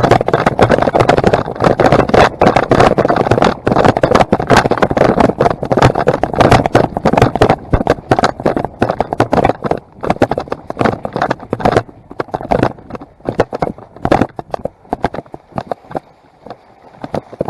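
Loud, crackling rustle and scraping of brush and gear close to a head-mounted camera microphone as the wearer pushes through woods on the move, dense for most of the time and thinning out about fourteen seconds in.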